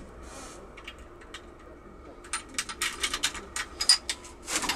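Irregular metal clicks and clinks, several a second, starting about two seconds in, as a steel snapping tool is worked into the keyway of a euro lock cylinder.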